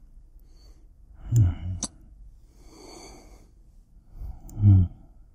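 A man's soft voice calling out twice, with a long breathy sigh between the two calls.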